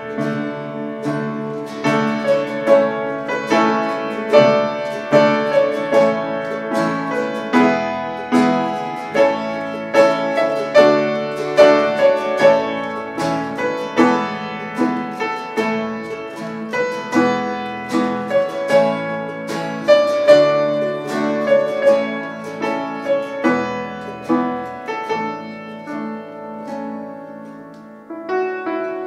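Instrumental music led by a keyboard piano, with acoustic guitar, electric bass and a small plucked string instrument played live together. The piano carries the chords and melody, with no singing.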